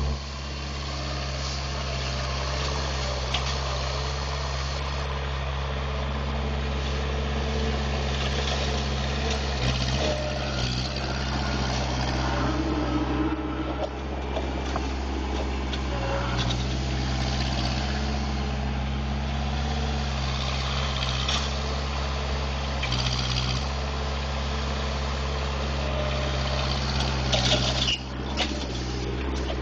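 Heavy vehicle engine running at a steady speed, with a few brief clanks and knocks, including a cluster near the end.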